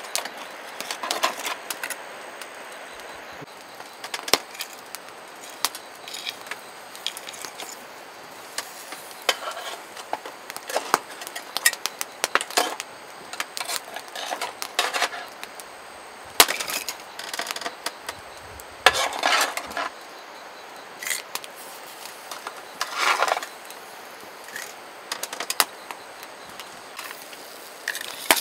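Scattered clinks, taps and knocks of camp cookware and utensils being handled, with a few short scraping sounds between them.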